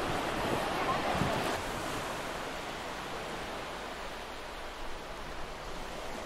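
Waves washing onto a sandy beach, louder for about the first second and a half, then a steady, quieter hiss of sea and wind.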